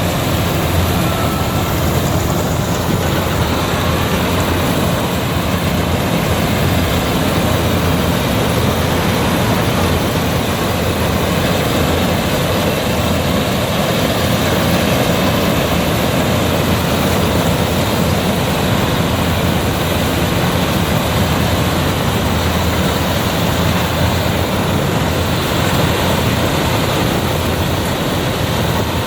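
Rice combine harvester running steadily in the field, its engine and threshing machinery making a constant loud drone.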